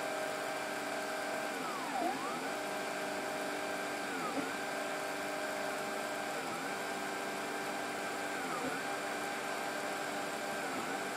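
3D printer's stepper motors whining as the print head lays down a gear, several steady tones that dip in pitch and climb back about every two seconds.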